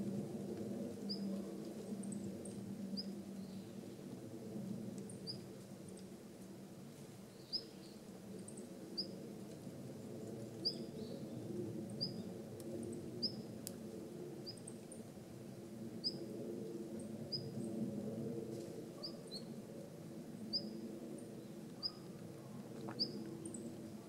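Male long-tailed rosefinch giving its short, high contact call over and over, about once every one to one and a half seconds, over a low steady rumble.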